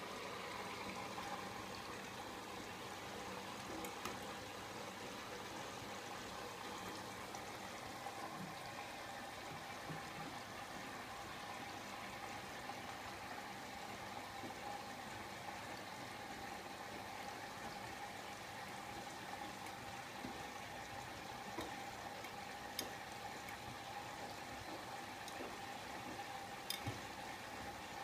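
Siemens iQ700 front-loading washing machine early in a 60 °C whites cycle: water running into the drum and sloshing as the drum turns the laundry, over a faint steady tone. A few small clicks come near the end.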